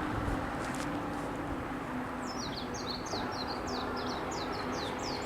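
A songbird singing a fast run of short, high notes, each sweeping downward, about five a second. The song starts about two seconds in, over a steady low background noise.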